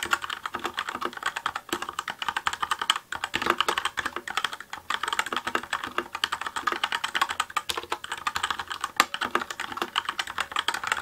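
Fast continuous typing on a Cooler Master CK550 V2 mechanical keyboard with TTC Red linear switches, which have no switch click: a dense run of keystrokes, broken by a couple of brief pauses.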